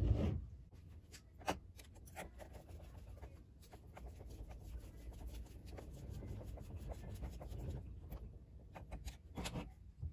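Hex driver working screws out of a Losi 8ight RC buggy's front end: small scattered clicks and a light metal scraping as the bit turns in the screw heads. A knock right at the start and another near the end.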